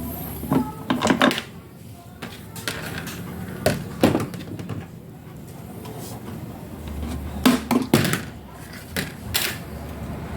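Irregular knocks and clatters of parts and tools being handled during repair work, with a few sharp ones about a second in, around four seconds, and near the end.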